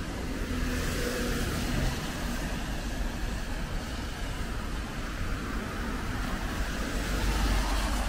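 City street traffic: cars passing, a steady noise of tyres and engines that swells and eases.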